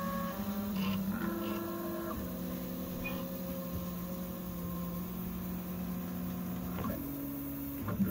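Original Prusa i3 MK3 3D printer's stepper motors whining while printing the slow first layer: steady tones that jump to a new pitch each time the print head changes speed or direction, over a low hum. A sharp click near the end.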